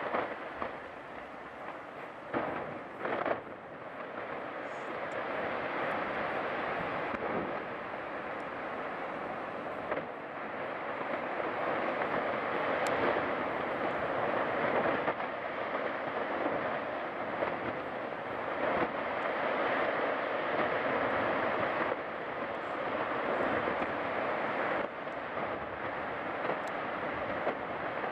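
Iceberg breaking up and falling into the sea: a few sharp cracks about two to three seconds in, then a steady rushing rumble of falling ice and churning water that grows louder from about ten seconds in.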